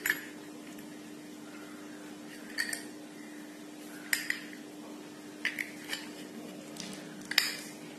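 Light metal clicks and clinks as a steel bearing lock plate is set over the bearing in a ceiling fan's end cover and pressed into place by hand, about six scattered taps, with a steady low hum underneath.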